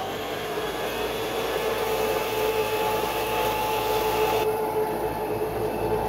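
Bissell BigGreen Commercial BGCC28 wide-area vacuum running at full speed just after being switched on: a steady motor whine over the hiss of rushing air. Its brushroll is set too high, so it is making poor contact with the cut-pile carpet.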